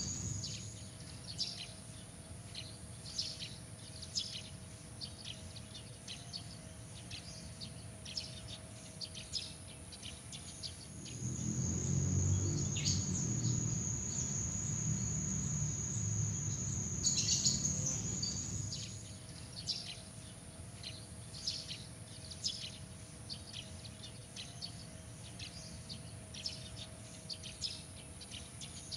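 Night-time outdoor ambience: a steady high insect trill, with many short chirps scattered throughout. For several seconds midway, the trill sits at a lower pitch and a low rumble rises underneath.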